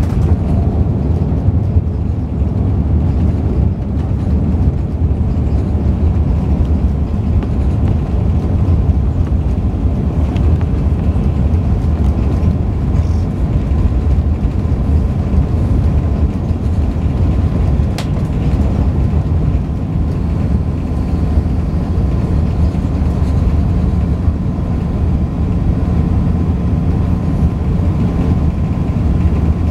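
Steady low cabin rumble of an Airbus A380-841 rolling along the ground after landing. A faint steady hum sits above the rumble, and there is a single sharp click about two-thirds of the way through.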